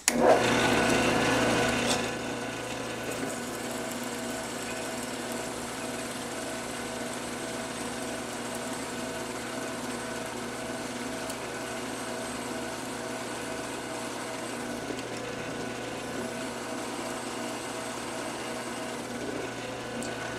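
Drill press running as a twist bit bores deep holes into an aluminum block, played back sped up so the machine sound is raised in pitch. It is louder for the first two seconds, then settles to a steady hum.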